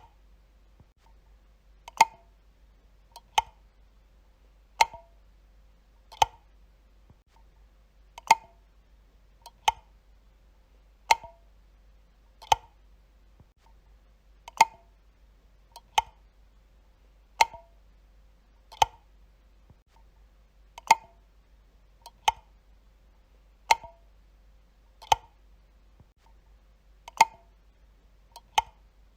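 Light switch flicked on and off over and over: a sharp click about every one and a half seconds, with a slightly longer pause after every fourth, each click followed closely by a faint second click.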